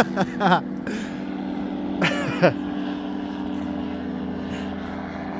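Flex-wing microlight trike's engine and propeller making a steady drone just after a very low pass overhead. A voice calls out briefly twice in the first few seconds.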